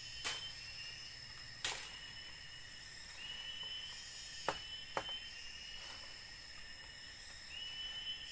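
Four sharp knocks or clicks from the bamboo tree-house frame as a person climbs on it, the last two about half a second apart. Behind them runs a steady high insect drone, with a short rising call that comes back every few seconds.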